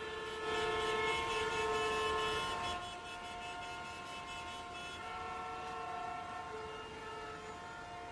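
Several vehicle horns honking at once, overlapping steady tones of different pitches, louder for the first couple of seconds: street traffic noise.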